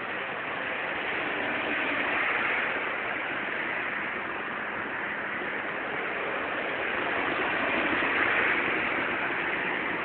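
Steady hiss of rain falling on a wet street, swelling a little about two seconds in and again near the end.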